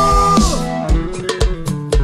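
Live rock band with electric guitars, bass and drums playing. A held chord slides down in pitch about half a second in, then the band picks up again with guitar notes over a steady drum beat.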